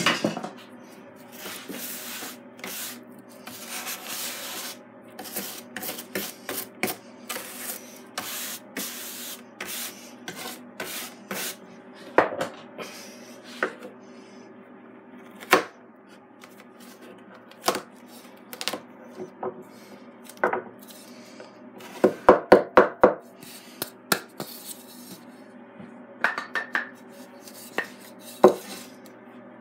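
Wood shavings being brushed and scraped off the bed of a CNC router, with scattered knocks and clicks as the freshly milled wooden part is handled and pried off the spoilboard, including a quick run of knocks about two-thirds through. A steady low machine hum runs underneath.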